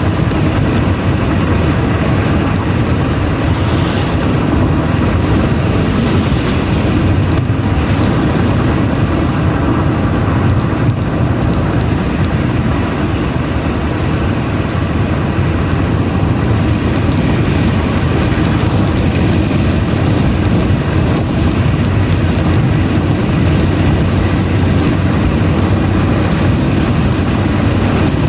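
Steady road noise inside a car cruising on a highway: engine and tyre noise with wind, holding an even level throughout.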